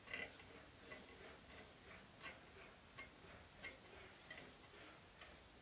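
Faint, irregular ticking and clicking, about two a second, from a sheet-metal fender panel being rolled back and forth through an English wheel under light pressure to blend the stretched areas in.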